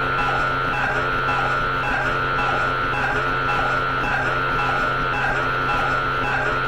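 Synthesized electronic drone: a steady low hum under a high tone that swells about once a second, repeating as an even loop.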